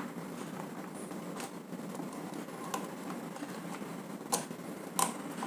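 A few faint, scattered clicks and taps as a wire is worked into the terminal block of an exhaust fan motor, over a quiet room hiss. The two clearest clicks come near the end.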